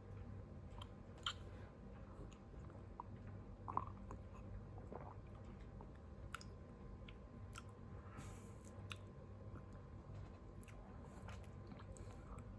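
Person quietly sipping coffee from a mug: faint slurps, swallows and small mouth clicks, with two sharper clicks in the first four seconds, over a steady low room hum.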